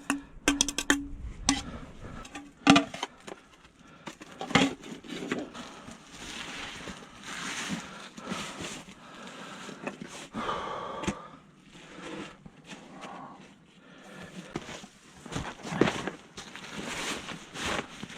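Camp cookware and gear being handled and packed away: scattered knocks and clinks with rustling and scraping.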